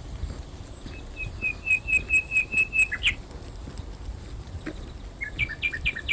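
A songbird singing: a run of about ten quick, clear notes on one pitch, speeding up and ending in a short flourish, then a few shorter two-note phrases near the end.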